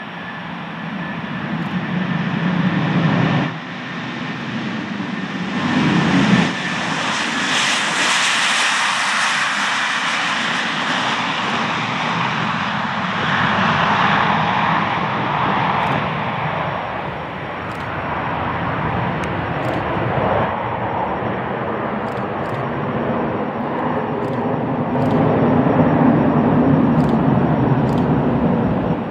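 Boeing 757-200 jet engines at take-off thrust. The noise builds as the airliner accelerates down the runway, is at its loudest and hissiest as it passes about eight seconds in, then goes on lower and duller as it lifts off and climbs away.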